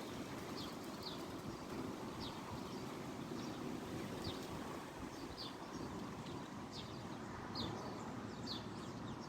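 Steady wind rushing, with short, falling bird chirps about once a second.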